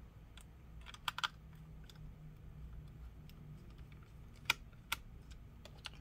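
Small screwdriver driving a screw back into a laptop's I/O board: a few sharp light clicks, a quick cluster about a second in and two more later on, over a faint steady low hum.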